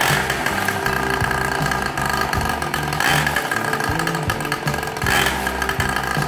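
Small motorcycle engine mounted in a homemade go-kart frame, running and blipped by hand in short bursts about 3 and 5 seconds in.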